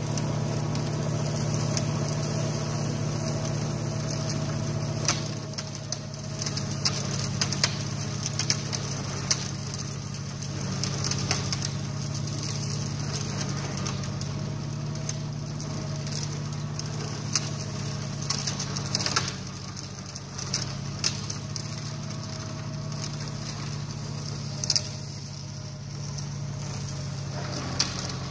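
New Holland TCE 50 tractor's diesel engine running steadily at working revs while driving an Agricom flail mulcher through weeds, with scattered sharp ticks over the hum.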